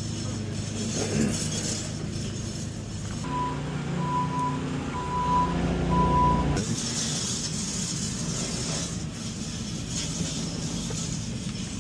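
Truck engine running steadily, with a back-up alarm beeping four times, about a second apart, near the middle.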